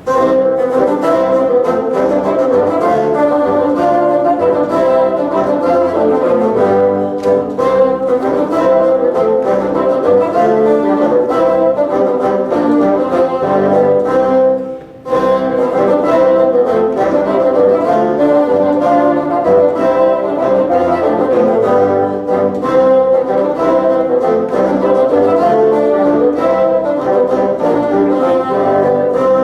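A bassoon ensemble playing a piece live, several bassoons sounding in harmony, with a brief pause about halfway through.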